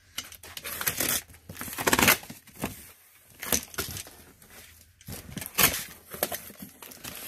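Cardboard box being opened by hand: the flaps are torn free of their tape and folded back, giving a string of irregular scraping, rustling cardboard noises.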